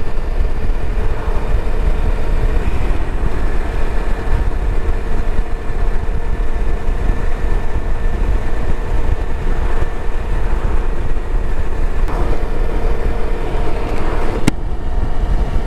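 Kawasaki Versys-X 300 parallel-twin motorcycle riding at road speed, its engine under steady wind rush on the helmet microphone. A single sharp click near the end.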